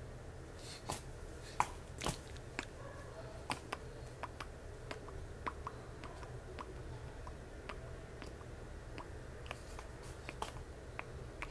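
Scattered small clicks and smacks at irregular intervals, over a low steady hum.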